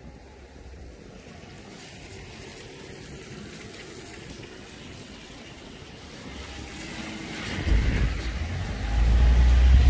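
Wet city street ambience: a steady hiss of traffic on rain-soaked road, then in the last few seconds a car's tyres hiss on the wet asphalt, growing louder, while wind rumbles on the microphone.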